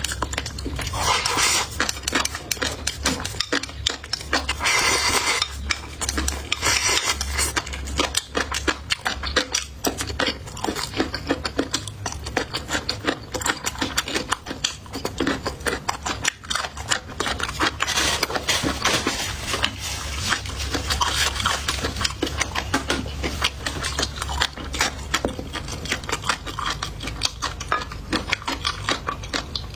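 Close-miked eating: a dense run of sharp clicks from chewing and biting, with utensils clinking against dishes.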